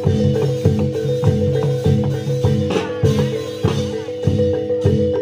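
Reog gamelan music: struck kettle gongs and drum beating a steady pulse about every 0.6 seconds, over a held, unwavering tone.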